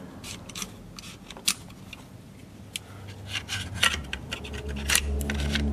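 Small metal clicks and light scraping of the Merkel RX Helix rifle's action parts being handled and slotted together in the receiver, a dozen or so separate clicks spread unevenly.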